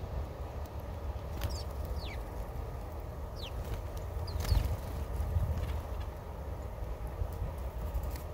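Small birds giving a few short chirps that fall quickly in pitch, scattered over the first half, against a steady low rumble.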